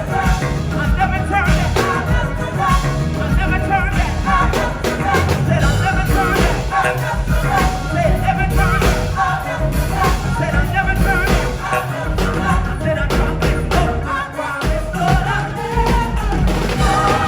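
Gospel choir singing with a full band: strong bass and a steady drum beat under many voices.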